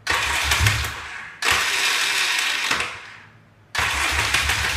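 Yamaha XS650 electric starter pressed three times, each press giving an awful mechanical noise about a second long that cuts in suddenly and fades away, without the engine catching. The owner thinks something is wrong with the starter, even after repairing its bendix gear.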